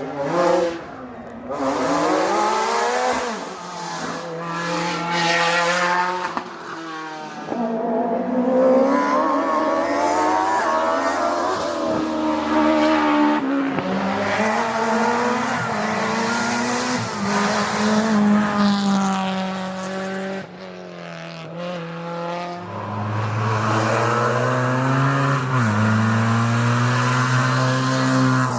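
Historic racing car engines at full throttle on a hillclimb, rising in pitch through each gear and dropping sharply at the gear changes, again and again.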